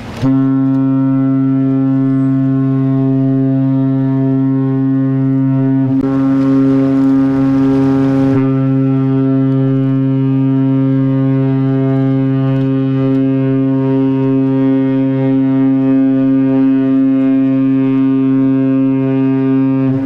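Cruise ship AIDAperla's horn sounding one long, steady, deep blast that starts suddenly and holds without a break: the long blast a ship gives as it leaves port.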